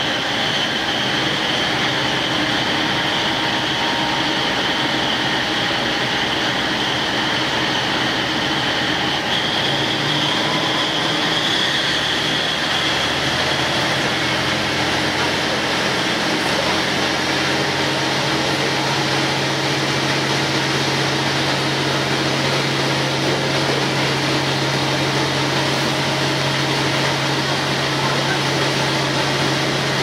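Interior noise of a KiHa 47 diesel railcar: the steady running din of the cabin. A high whine fades out about halfway through, and a low diesel engine drone builds up from about twelve seconds in and then holds steady.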